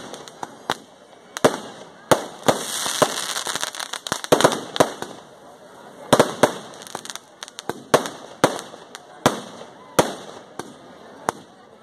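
Fireworks and firecrackers going off in quick, irregular bangs, with a stretch of hissing crackle about two and a half seconds in.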